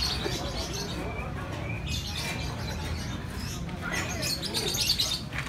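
Lovebird singing in bursts of high, rapid chirping, strongest near the end, over a steady low hum.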